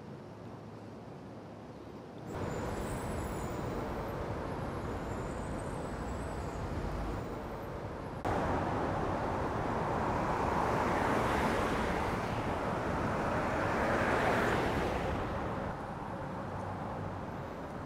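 Road traffic noise, a steady rush that jumps louder twice and swells to its loudest near the middle before easing back.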